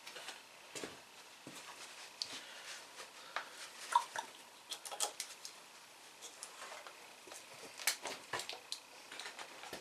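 Irregular light clicks, taps and clinks of tools and parts being handled, with no engine running.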